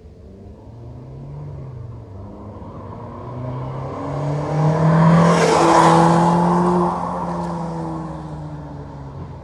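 Citroen C4 VTS coupe with its stock exhaust, 2.0-litre 180 hp petrol four-cylinder, driving past under throttle. The engine note builds as it approaches, is loudest about five to seven seconds in, then fades as it goes away with its pitch dropping slightly.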